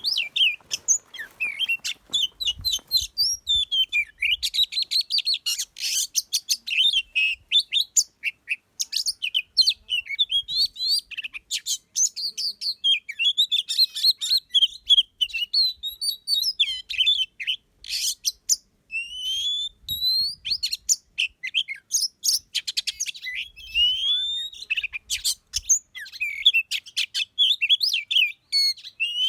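Oriental magpie-robins and other small songbirds singing and chirping nonstop: a dense tangle of quick whistled notes, trills and short chirps, several birds at once.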